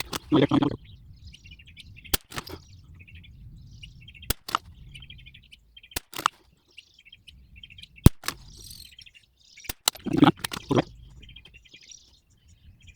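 Anschutz 1761 .22 LR rifle firing about five sharp cracks roughly two seconds apart, with a few duller knocks between them. Birds chirp in the background.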